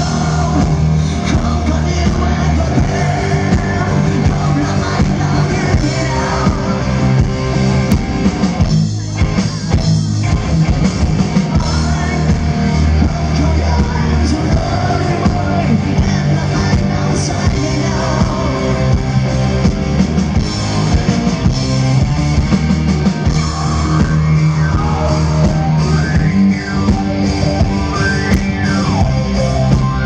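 Rock band playing live through a PA: distorted electric guitars, bass and drums, with a singer's voice over them.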